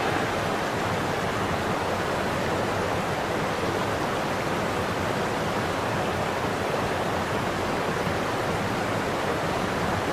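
Rushing water of river rapids: a steady, even rush with no breaks.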